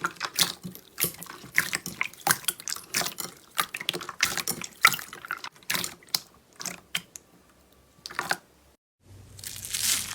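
Slime being squeezed and pressed, a quick irregular run of wet clicks and pops. After a brief cut near the end, a denser crunching starts.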